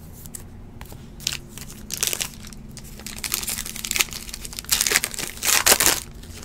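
Foil trading-card pack wrapper crinkling and tearing as it is handled and opened, in a run of short rustles that grow louder and closer together in the second half.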